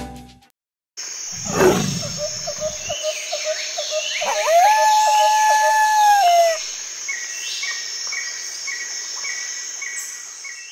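Jungle ambience: a low animal roar just after a brief silence, then birds calling over a steady high buzz, with one long held whistle in the middle and evenly spaced chirps, about one and a half a second, near the end.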